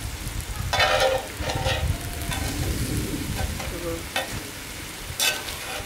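Chicken and vegetables sizzling in a large hot pan while metal tongs stir and scrape through them. There are several short clattering scrapes, the loudest about five seconds in.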